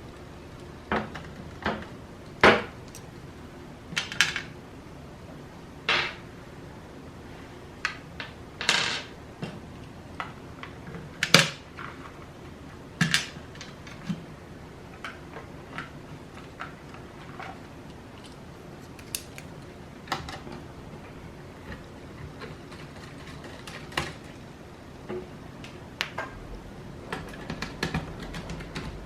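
Irregular sharp clicks and taps of small tools against the plastic and metal parts of an Acer Aspire E1-570 laptop being taken apart, a dozen or so spread unevenly, a few with a short metallic ring.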